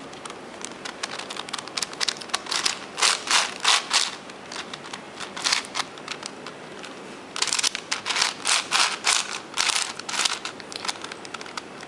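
Layers of a 7x7x7 V-Cube puzzle being turned quickly by hand, the plastic pieces clicking and scraping in fast runs of moves. There are two main flurries, one starting about half a second in and a denser one past the middle.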